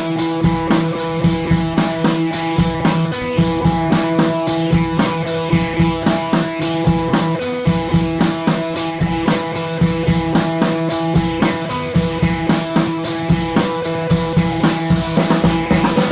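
Background music with a steady drum beat, guitar and sustained keyboard tones.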